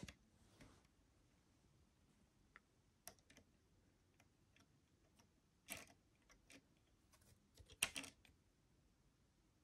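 Faint, scattered clicks and taps of plastic Lego pieces being handled as the TIE Fighter Pilot minifigure is fitted into the Lego TIE Fighter's cockpit, the loudest few coming about eight seconds in.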